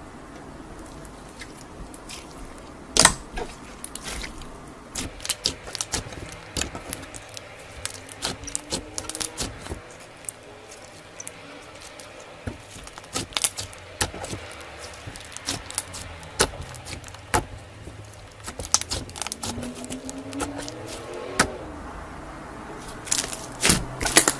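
Slime being squeezed and stretched by hand, making a run of irregular sticky clicks and pops, with a few faint squeaks.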